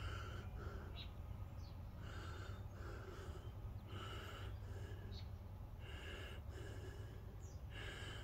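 A yellow Labrador sniffing and snuffling at the grass close to the microphone, in short breathy bursts that come in pairs about every two seconds.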